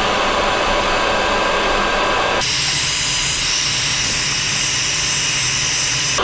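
Black & Decker heat gun blowing steadily on heat-shrink tubing over soldered cord splices. About two and a half seconds in, its sound abruptly turns hissier and brighter and holds that way.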